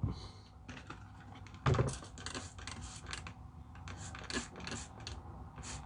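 Handling noises: scattered small clicks and taps, with one louder knock a little under two seconds in.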